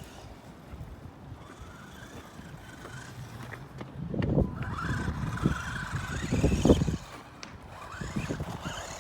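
Electric motor of a radio-controlled car whining, rising and falling in pitch as it speeds up and slows down. A louder low rumbling comes in between about four and seven seconds in.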